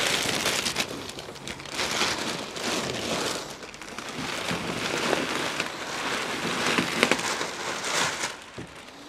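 Cardboard and plastic packaging rustling and crinkling in irregular bursts as the last hardtop part is unpacked.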